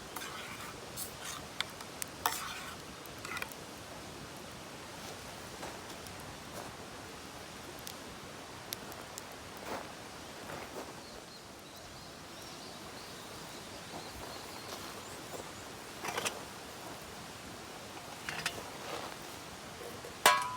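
Scattered clinks and light scrapes of utensils against cookware, over a steady background hiss; the loudest is a sharp ringing clink near the end.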